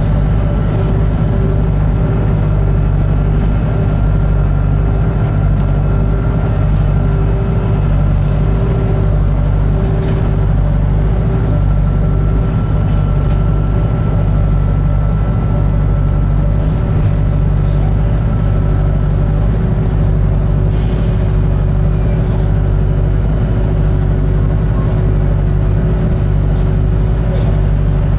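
Steady low hum and rumble of a New Bus for London diesel-electric hybrid double-decker's drivetrain, as heard on the upper deck. A faint pulsing tone comes and goes over the first twelve seconds or so.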